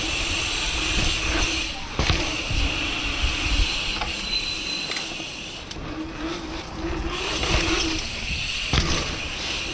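Enduro mountain bike ridden fast over city paving, heard from a camera on the bike: a steady rolling rush with a hiss, and sharp knocks about two seconds in and near the end as the bike hits bumps or drops.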